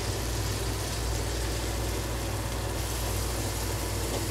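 Sliced shallots and bird's eye chilies sizzling in hot oil in a wok, a steady frying hiss with a low hum beneath.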